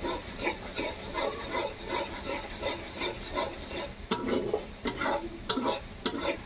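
Metal spatula scraping and stirring onions and garlic paste frying in oil in an iron kadai, about two or three strokes a second over a steady sizzle.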